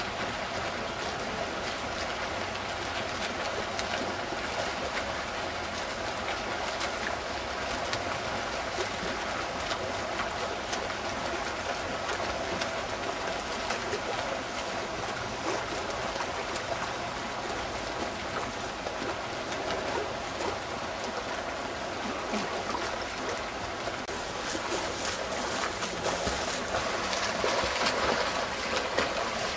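Continuous water splashing and churning from swimmers' front-crawl strokes, with a faint steady hum underneath. The splashing gets louder near the end.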